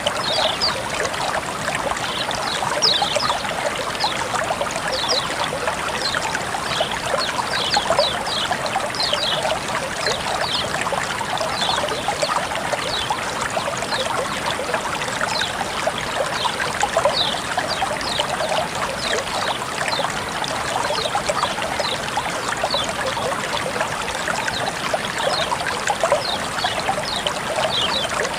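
Running water trickling and babbling steadily, with many small, high, bright plinks over the rush.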